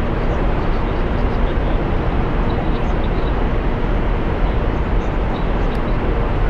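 Steady rumble with an even rushing hiss, heaviest in the bass and with a faint hum, unchanging throughout: the ferry's machinery and ventilation running while it lies in port.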